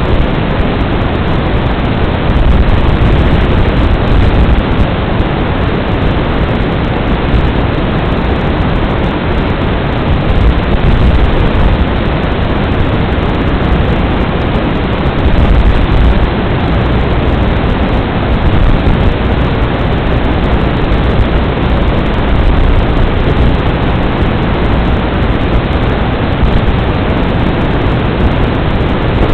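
Steady, loud hiss of static from an analog FPV video receiver's audio channel, an even rush with no motor tone or rhythm in it.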